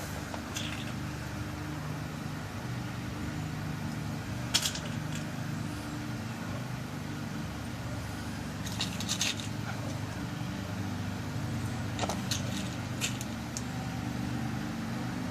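Small metal clicks of brass pin tumblers being dropped into a lock cylinder as it is loaded with new pins for rekeying: one sharp click about a third of the way in, then a few clusters of clicks later on, over a steady low hum.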